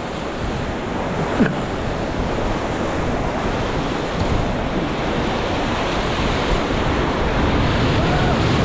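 Ganges river water rushing steadily around a raft, a loud even whitewater noise, with wind buffeting the microphone.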